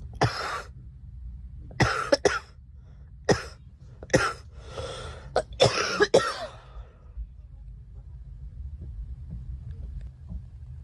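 A girl coughing: about ten sharp coughs in several short bouts, some in quick runs of two or three, over the first seven seconds.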